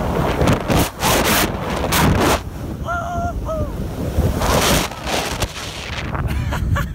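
Loud, noisy rush of air over the microphone of a camera held by a person swinging at high speed on a giant swing, rising and falling in gusts. About three seconds in there is a brief pitched vocal cry from the rider.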